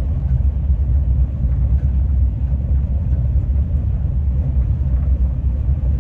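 Steady low rumble inside a moving passenger train carriage.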